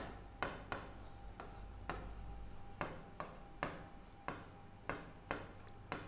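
A pen tip tapping and scraping on a writing board as a word is written by hand: a dozen or so short, faint clicks at uneven spacing, about two a second.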